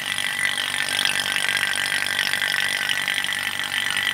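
Electric refrigeration vacuum pump running steadily, evacuating a refrigerator's refrigerant lines toward about minus 30 PSI before the freon charge.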